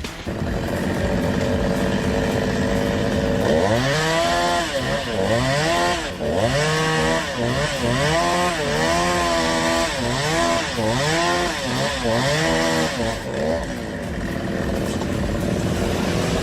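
Chainsaw running. A few seconds in its engine starts revving up and down about once a second, and it settles back to a steadier pitch near the end.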